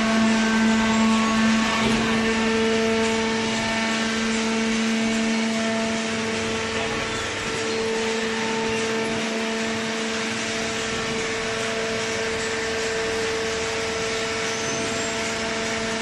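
Hydraulic waste paper baler running: a steady machine drone of two low held tones over an even hiss, from its hydraulic pump and motor.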